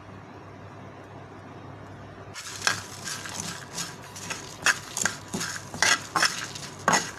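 A steel spoon stirs whole spices dry-roasting in a metal frying pan: chickpeas, cumin, black peppercorns, coriander seeds and dried red chillies. The seeds rattle and the spoon scrapes and clinks against the pan in quick, irregular strokes, starting about two seconds in after faint steady background noise.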